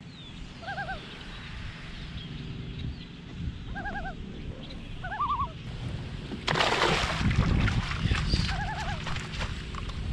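Short warbling bird calls, four of them, over a low steady rumble, and a sudden loud splash of water about six and a half seconds in that trails off into splashing and dripping.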